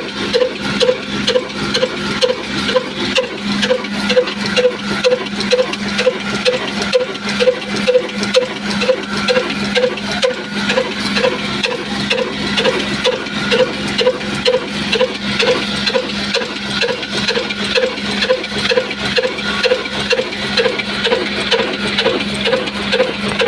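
Old Ruston Hornsby diesel oil engine running steadily while driving a flour mill, beating evenly about twice a second over a constant hum.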